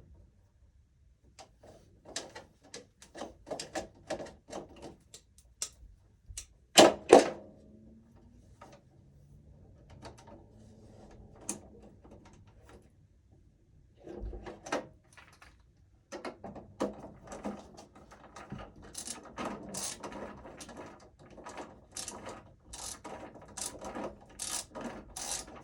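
Small clicks, taps and rattles of hand work in a breaker panel, from tools, breakers and wiring being handled. A loud double knock comes about seven seconds in, and the clicking grows denser through the second half.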